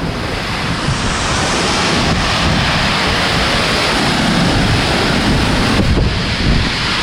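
Loud, steady rush of whitewater, with wind buffeting the microphone.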